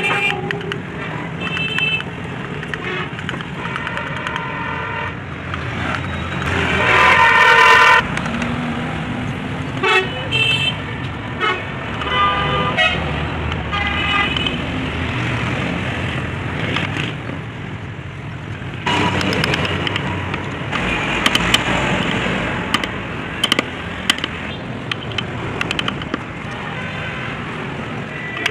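Road traffic with vehicle horns honking several times, the loudest a long horn blast about seven seconds in. A few sharp clicks come in the second half.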